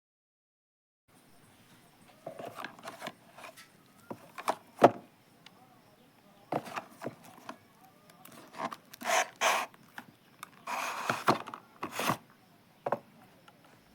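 Irregular clicks, taps and short rustles of a small product box and its packaging being handled and opened by hand, with a sharp knock about five seconds in.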